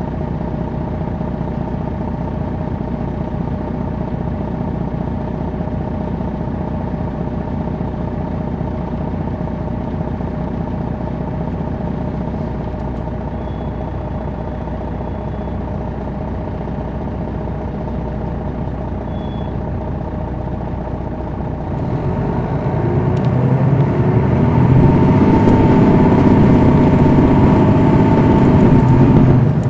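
Diesel engine of a 2001 MCI D4000 coach, a Detroit Diesel Series 60, running steadily under way for about twenty seconds, then getting louder and climbing in pitch as the bus accelerates, with a high whine over it, before dropping off abruptly near the end.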